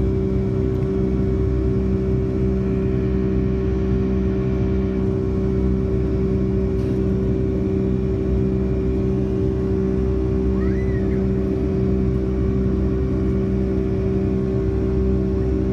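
Cabin noise of a Boeing 757-200 in flight, heard from a window seat beside the engine: a steady low rumble from the turbofan engines and airflow with a loud, constant hum of several held tones on top.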